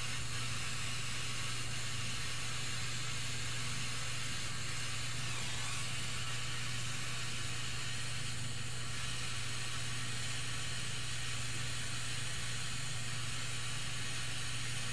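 Small refillable butane micro torch burning with a steady hiss, its flame held on twisted wire ends to tin them with solder.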